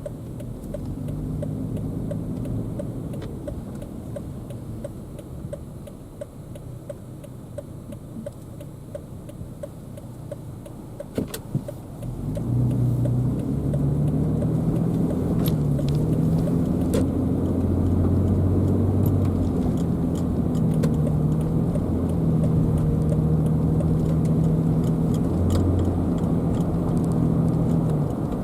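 Car heard from inside the cabin: the turn-signal indicator ticks steadily over a low idle. About twelve seconds in, the ticking stops and the car pulls away. The engine note and road noise rise, and the engine's pitch changes in steps as it gathers speed.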